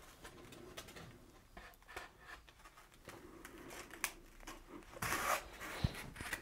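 Quiet handling noises of a rigid Styrodur foam board being set down on a baseboard and pressed into its glue: light scuffs and small clicks, a longer rubbing sound about five seconds in, and a soft knock just before the end.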